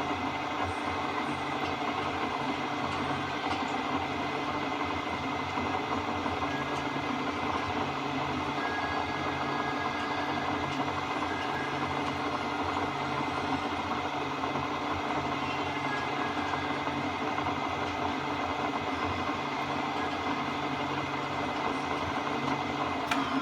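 Okuma Howa STM 2V vertical milling machine running, a steady mechanical hum with several constant tones and a low throb that pulses evenly about once a second.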